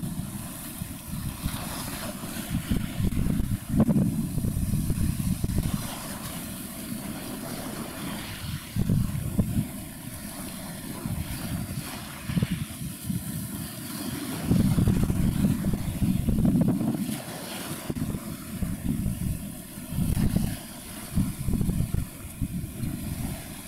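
Wind buffeting the microphone in irregular gusts, a low rumble that swells and drops over a steady high hiss.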